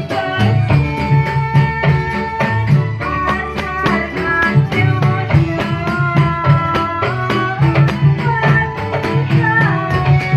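Dolalak dance music: a steady drum beat with rattling percussion under a sliding melody line.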